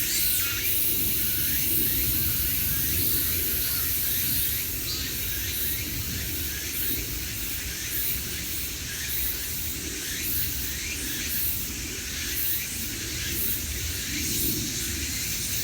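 Grass insects such as crickets calling in a dense, steady high-pitched chorus with a pulsing rhythm, with short chirps, likely birds, over a low steady rumble.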